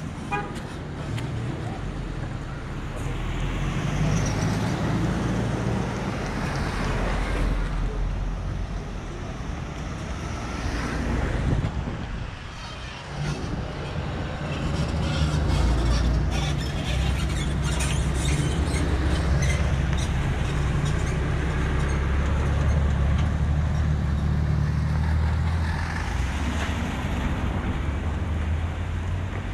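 A motor vehicle's engine running steadily with road and wind noise, a low hum that dips briefly about twelve seconds in and grows louder a few seconds later, with some scattered clicks or rattles.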